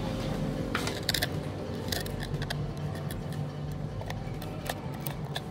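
Metal tweezers picking and scraping broken screen glass and old adhesive off a phone's metal frame: irregular small clicks and scratches.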